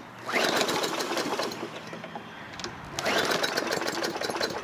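Two pulls on the recoil starter of a Hyper Tough push mower's four-stroke engine, about three seconds apart. Each pull cranks the engine over briefly with a rising whir, and it comes close to firing but does not start. The engine has just been drained of Drano and refilled with 5W-30 oil, and there is still foam in the crankcase.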